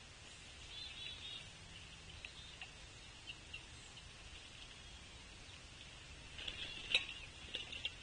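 Pileated woodpeckers at a log suet feeder: a cluster of sharp taps and knocks in the last second and a half, one loud knock about seven seconds in, over a steady high-pitched background hiss.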